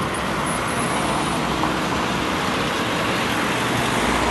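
Steady traffic noise from road vehicles, an even rushing haze with a low rumble that grows a little stronger near the end.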